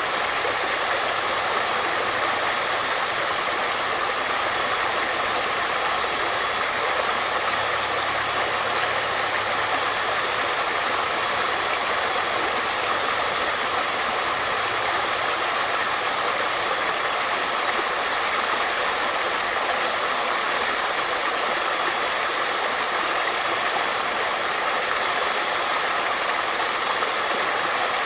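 Flowing water running steadily, an even unbroken rush with no pauses or changes in level.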